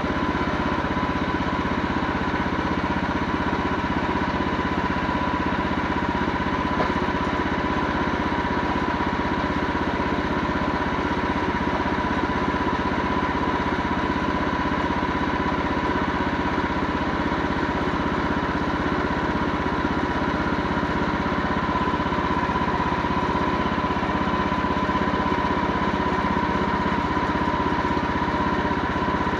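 An engine running steadily at an even speed, with a steady high whine over it.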